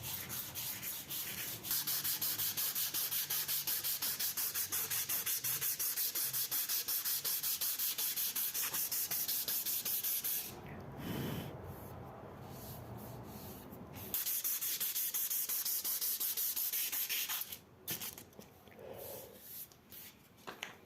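Hand sanding: quick, even back-and-forth abrasive strokes, about five a second. They pause for a few seconds about ten seconds in, resume briefly, and give way to a few scattered soft sounds near the end.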